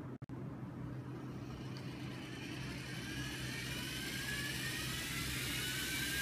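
LEGO Mindstorms EV3 robot's electric drive motors whining as the robot accelerates, the whine climbing steadily in pitch and growing a little louder as its speed increases.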